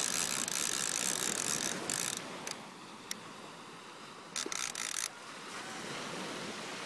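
Conventional fishing reel being cranked by hand, its gears whirring and clicking. The cranking stops about two seconds in, with a couple of short spurts of reeling later on.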